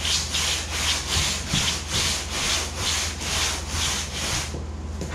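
Hand sanding board, a flat piece of plywood, rubbed back and forth along the edge of a foam kayak hull, shaping the foam. Steady scraping strokes about two a second, stopping shortly before the end.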